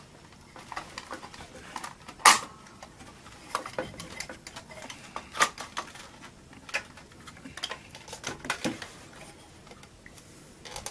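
Irregular clicks, knocks and clatter of plastic and metal computer parts being handled and pulled out of a desktop PC case, with the sharpest knock about two seconds in.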